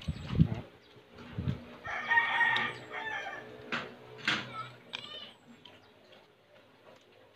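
A rooster crowing once, about two seconds in, lasting around a second. There are a few low thumps near the start and a couple of sharp clicks in the middle.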